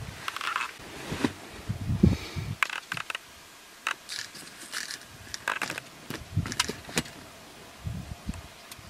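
Scattered light clicks, small rattles and soft knocks with some rustling, irregular and never steady, like handling noise close to the microphone.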